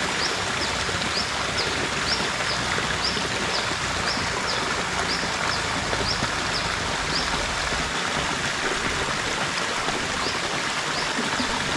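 A small stream running over rocks into a pool, a steady rush of water. Over it, high short chirps repeat about twice a second, stopping for a couple of seconds about two-thirds of the way through.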